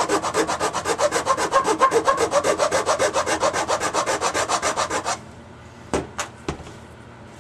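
Hand file rasping back and forth on the edge of a hole in a plastic console panel, about six or seven quick strokes a second, filing the switch opening out to its line. The filing stops about five seconds in, followed by three light knocks.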